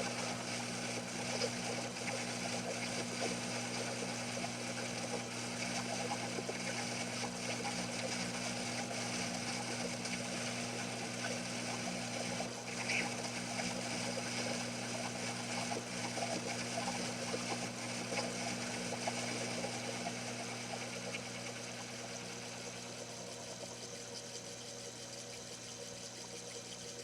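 Small metal lathe running steadily with its leadscrew power feed engaged, taking a turning cut on its own: a steady motor hum made of several even tones, easing off slightly over the last few seconds.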